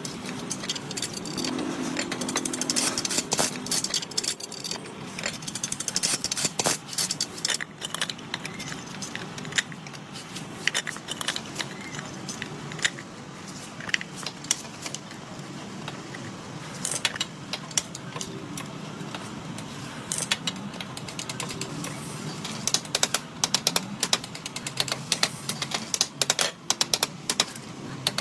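Irregular metallic clicking, clinking and rattling, like small metal parts and tools being handled, with sharp clicks coming in clusters and thickest in the last few seconds.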